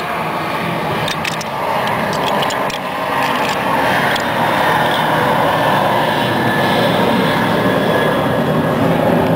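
Loud, steady engine noise from a passing motor, swelling after about three seconds and holding. A few light metallic clicks in the first three seconds, from an Allen wrench on the scooter's oil drain plug.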